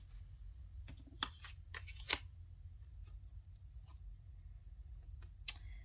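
Tarot cards being handled: a few short, light flicks and taps, several clustered about a second in and another near the end, over a low room hum.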